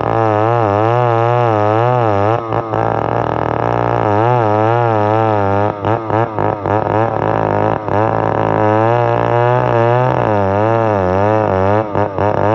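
Stihl 070 two-stroke chainsaw running under load while ripping a log into boards. The engine pitch wavers up and down a few times a second, with a few brief dips in loudness.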